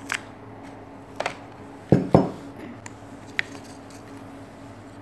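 Glass Nutella jar set down on the tabletop with two loud knocks about two seconds in, a quarter second apart. Lighter clicks and taps of handling come at the start, about a second in and near three and a half seconds.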